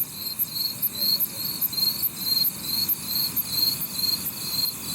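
Night insects, crickets, chirping steadily in regular pulses, about three a second, with a second, higher-pitched chirp repeating alongside.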